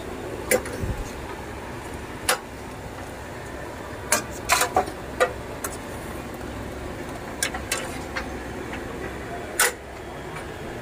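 Aloo parathas deep-frying in a large iron karahi of hot oil, a steady sizzle, with sharp clicks and clinks every second or so.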